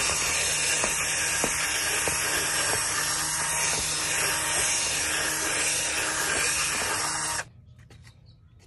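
Cordless drill spinning a scrub brush over a foamy rubber floor mat: a steady motor hum under the brush's hiss. It cuts off suddenly about seven seconds in, leaving only faint clicks.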